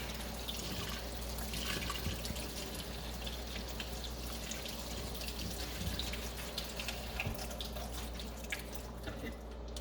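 Kitchen tap running steadily, water splashing over chopped lettuce in a strainer in the sink, with small spatters and drips; the flow eases off near the end.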